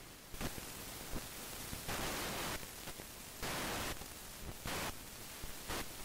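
Hiss and static with three short louder bursts of noise and a few faint clicks.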